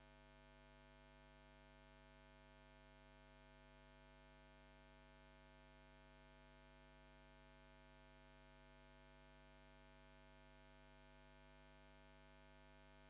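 Near silence: only a faint, steady, unchanging hum with its overtones and a light hiss.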